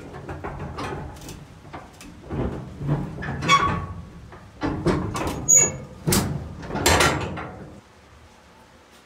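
Irregular knocks, clunks and brief squeaks, about a dozen, the loudest a little past the middle, stopping about a second before the end.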